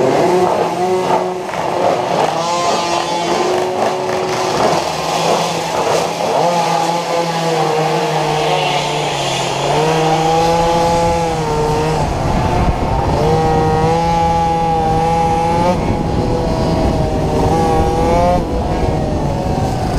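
A small racing motorcycle's engine heard from on board, revving up and dropping back several times as it accelerates and changes gear.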